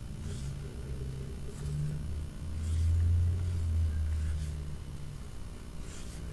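A low rumble that swells to its loudest about three seconds in and then fades again, with a few faint ticks over it.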